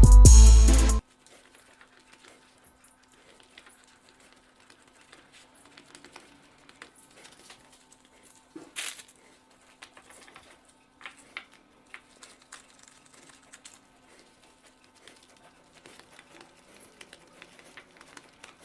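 A second of loud music with a drum beat, then faint scattered taps and rustles of hands handling bread and meat filling, over a faint steady hum.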